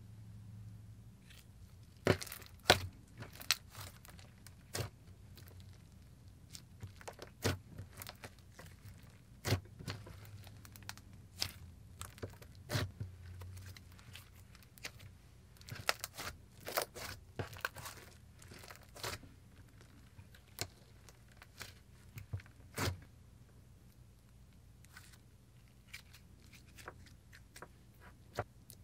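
Fingers poking and pressing a soft buttery clay slime, making irregular sticky clicks and pops, a few sharper ones about two to three seconds in.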